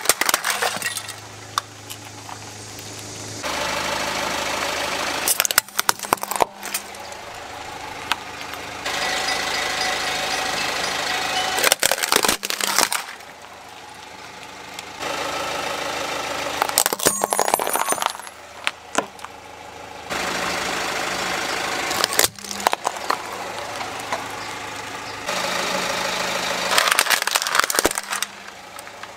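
A car engine running at low speed while a tyre rolls over plastic toys, with about six bursts of sharp plastic cracking and crunching that are the loudest sounds. The steady engine hum changes abruptly every few seconds between clips.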